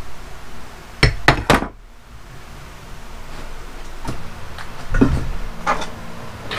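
Metal parts of a Hobart mixer's shaft and gear assembly being knocked and handled: three quick sharp metallic knocks about a second in, then scattered lighter knocks and clinks.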